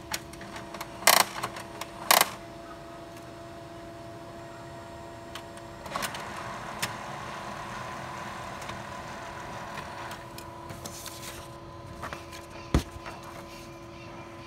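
HP Color LaserJet M277n colour laser printer running a print job: a steady motor hum made of several tones, with two loud clacks in the first couple of seconds, a rush of paper feeding through from about six seconds in, and a sharp click near the end.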